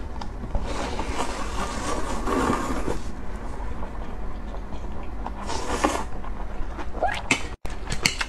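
Close-up eating sounds of a scallop with glass-noodle vermicelli: the noodles being slurped in and chewed, in two longer noisy stretches, then a few short clicks and small squeaks of the mouth near the end. A steady low hum runs underneath.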